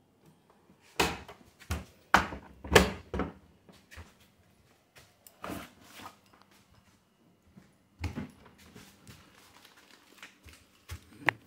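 Irregular knocks and clunks of a door and household things being handled: a quick cluster of sharp knocks in the first few seconds, then a few scattered ones.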